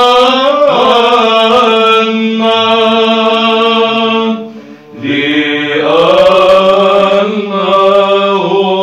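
Monks singing Byzantine chant in Arabic: a melody moving over a steady held low drone note. There is a short break a little past halfway, then the chant resumes.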